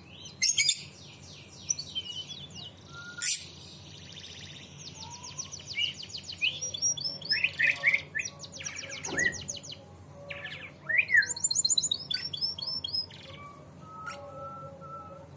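Domestic canary singing: phrase after phrase of fast rolling trills and rapidly repeated high chirps, with a couple of sharp loud notes in the first few seconds.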